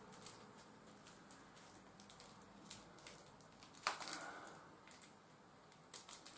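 Faint rustling and small clicks of a plastic packet of fittings being handled and cut open with a small knife, with a louder crinkle about four seconds in.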